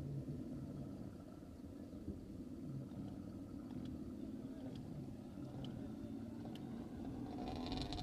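Steady low engine hum with a few faint clicks. Near the end a higher whirring joins in.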